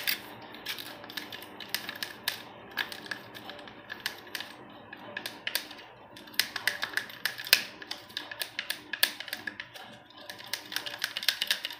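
Thin plastic stick clicking and scraping against the sides of a small plastic cup, in quick irregular taps, as glue and water are stirred together.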